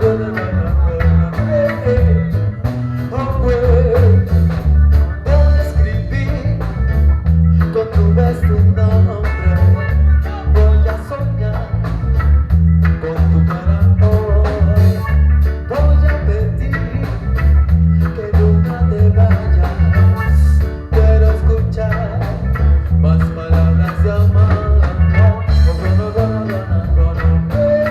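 Live reggae band playing a song: a heavy bass guitar line in a steady repeating rhythm, guitar, and a singer's voice.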